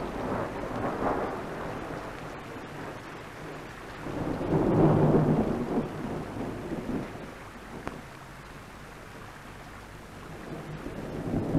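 Low rumbling outdoor background noise, with no clear tones, that swells near the start and again more strongly about five seconds in, then settles to a steady lower level.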